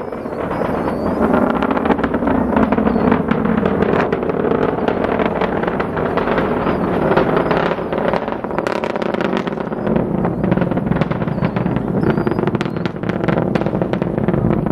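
Falcon 9 rocket's first-stage engines heard from afar during launch: a continuous deep rumble with steady crackling.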